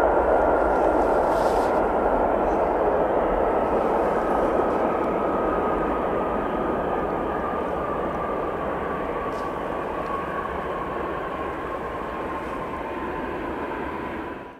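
Jet airliner engines passing: a steady rush with a thin whine that slowly falls in pitch as the sound gradually fades, then cuts off suddenly at the end.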